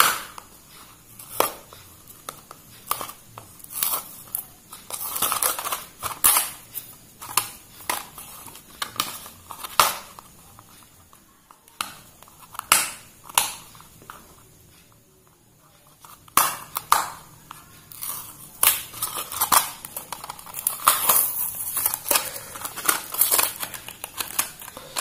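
A sealed cardboard box of piston rings being peeled and torn open by hand: irregular crackling, crinkling and tearing noises. They thin out in the middle and come thick and fast again in the last third as the flaps are pulled open.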